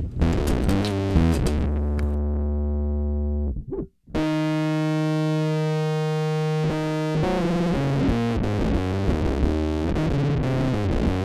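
Electric bass played through an "NYC Muff" fuzz preset on a bass multi-effects unit: thick, heavily distorted notes with long sustain. The playing stops briefly a few seconds in, a single note is held for a couple of seconds, then a quicker run of notes follows.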